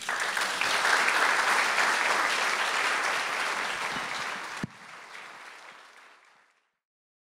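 Audience applauding; the applause drops sharply about four and a half seconds in and fades away to silence over the next two seconds.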